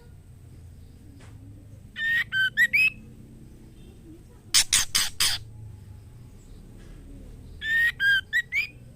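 Female white-rumped shama calling a male, as a female in breeding condition does: a short phrase of whistled notes with rising slurs, then a run of four harsh rasping calls, then the whistled phrase again near the end.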